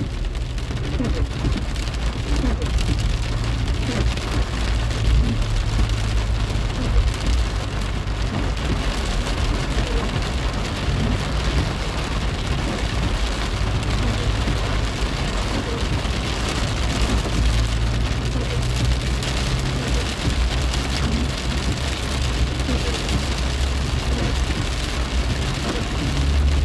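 Heavy rain pattering on a car's windscreen and roof, heard from inside the cabin. Under it runs a steady low rumble of the car moving in traffic.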